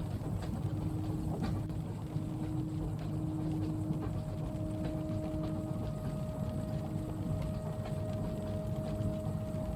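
Passenger train carriage in motion: a steady low rumble with faint steady hums and light, irregular clicks and knocks from the running gear.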